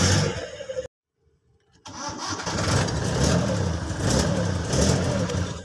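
Car engine cranking on a starter wired through a heavy-duty 100-ampere relay, then starting and running. The relay was added because the starter would only click. The sound cuts to dead silence for about a second, about a second in.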